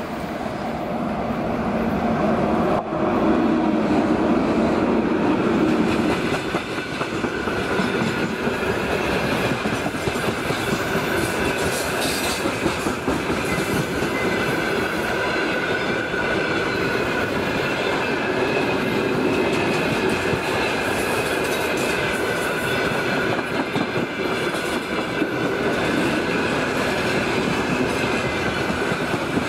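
A freight train hauled by a 2ES4K electric locomotive passing close by: the locomotive goes by loudest in the first few seconds, then a long string of open freight wagons rolls past, wheels clattering on the rails, with a thin steady whine running through it.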